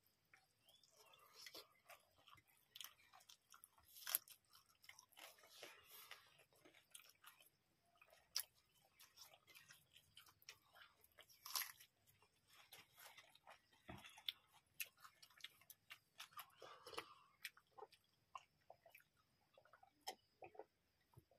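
Faint sounds of people eating rice and okra curry with their hands: chewing, with scattered small clicks and taps.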